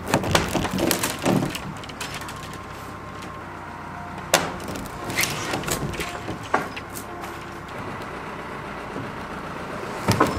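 Irregular knocks and clacks of wood on wood as peeled log poles are shifted against each other and the plank deck. The knocks come thick in the first two seconds, with one hard knock about four seconds in and scattered lighter ones after.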